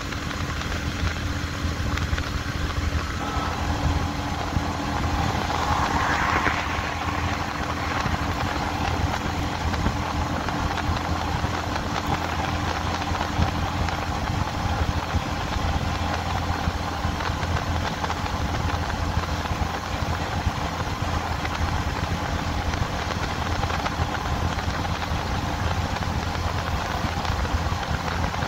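Bajaj commuter motorcycle's single-cylinder engine running steadily at cruising speed, with wind and road noise.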